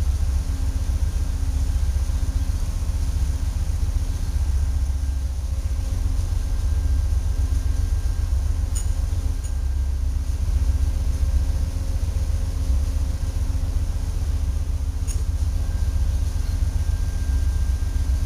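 Domestic cat purring close to the microphone: a low, continuous rumble that swells and eases every second or two with its breathing. A few faint sharp clicks sound in the background.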